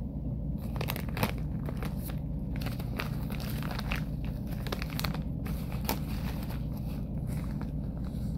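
Clear plastic bag crinkling and rustling as hands open it and dig among the homemade cornstarch chunks inside, with many scattered sharp crackles.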